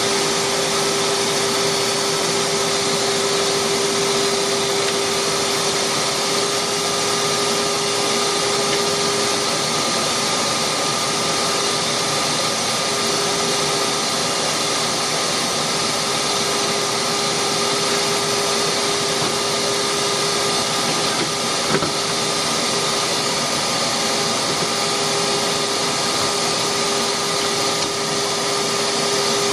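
Delta wood lathe running steadily, a constant motor whine with an even hiss, and one brief click about three quarters of the way through.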